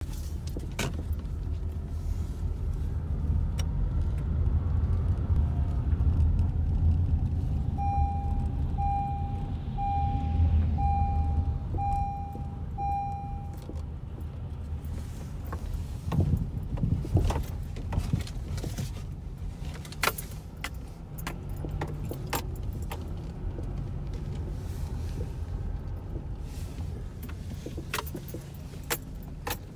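Inside a car's cabin while driving slowly: steady low engine and road rumble with scattered rattling and clicking, which grows busier in the second half. About a third of the way in, an electronic chime beeps six times, about a second apart.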